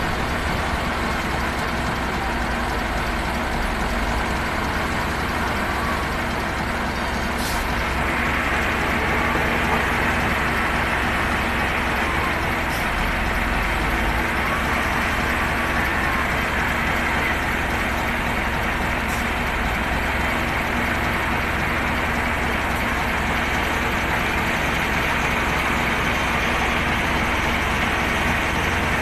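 LTMG LT955 wheel loader's diesel engine running steadily, getting slightly louder about eight seconds in.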